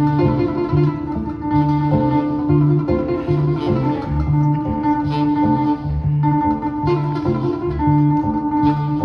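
Live acoustic jazz trio playing: acoustic guitar and plucked upright bass, with saxophone holding long notes above them.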